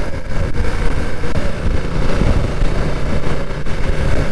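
BMW F900R motorcycle's parallel-twin engine running while riding, under a steady rushing noise of wind and road.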